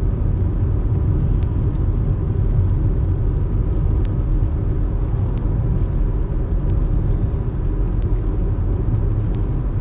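Steady low road-and-engine rumble inside the cabin of a moving car, with a few faint ticks.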